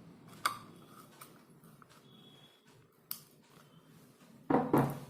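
Sharp clicks and knocks from small plastic air-pump parts being handled: one click about half a second in, another about three seconds in, and a louder pair of knocks near the end.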